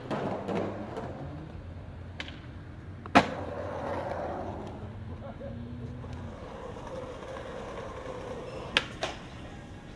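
Skateboard wheels rolling on concrete with a steady rumble, broken by a few sharp board clacks. The loudest clack comes about three seconds in, and two more come close together near the end.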